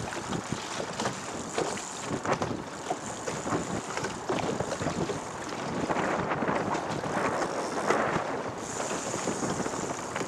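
Wind buffeting the microphone on an open boat, with the rush of water around the moving hull.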